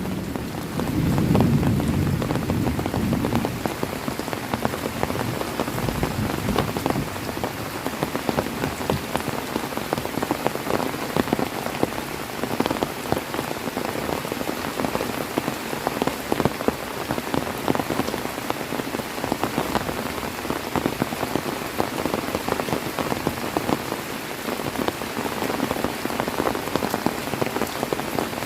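Heavy rain falling steadily, with many individual drops striking close by. A low rumble of thunder dies away in the first few seconds.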